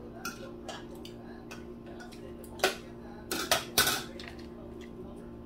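Metal forks clinking and scraping against plates and dishes as people eat, with a handful of sharp clinks about two and a half to four seconds in, over a steady low hum.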